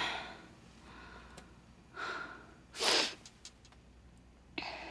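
A woman breathing audibly with her eyes closed: a soft breath about two seconds in, then a louder, sharper intake or exhale about three seconds in, and another breath starting near the end.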